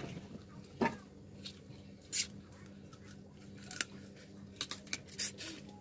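Crab shell being cracked and snapped apart by hand while eating: a series of short, sharp cracks and clicks, with a quick cluster of them near the end.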